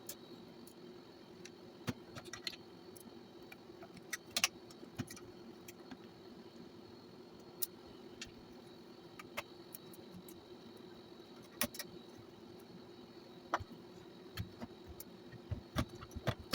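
Scattered small metallic clicks and taps from hands working on the answering machine's parts, over a steady low hum and a faint high tone; the clicks come closer together near the end.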